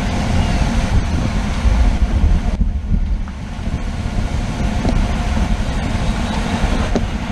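Wind buffeting the microphone of a camera moving at cycling speed: a loud, steady rumble with hiss above it. The hiss thins for a moment about two and a half seconds in.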